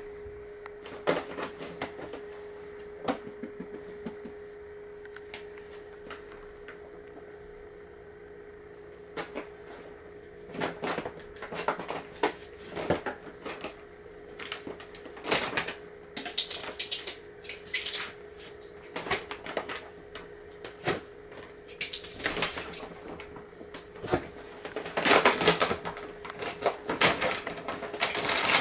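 Heavy brown paper lawn-and-leaf bag crinkling and rustling in irregular bursts as a long-haired cat paws at it and pushes into it, getting busier and louder near the end. A steady low hum runs underneath.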